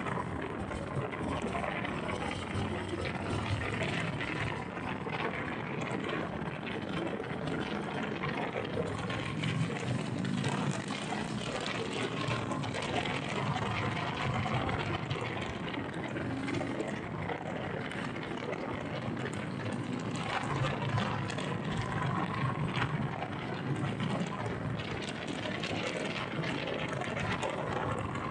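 Steady wind rush buffeting the microphone on a moving Harley-Davidson Sport Glide motorcycle, with the bike's V-twin engine and road noise running underneath.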